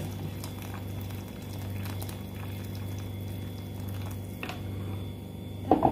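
Just-boiled water pouring into an aluminium pot of sautéed rice and chicken, the liquid bubbling and splashing in the pot, over a steady low hum.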